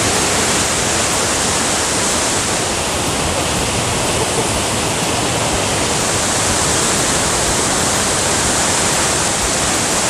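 Loud, steady rush of a waterfall, white water pouring and splashing down over rocks.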